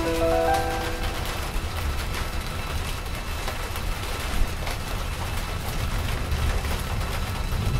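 Steady rumbling noise with scattered faint crackles, like rain. A short held chord fades out within the first second.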